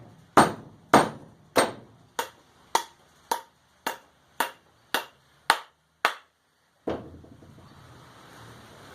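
Hand hammer blows driving a steel wedge crosswise into the top of a wooden hammer handle, seated in the eye of a forged hammer head: about eleven sharp, briefly ringing strikes at roughly two a second, getting somewhat quieter as the wedge goes home, then a softer knock near the end.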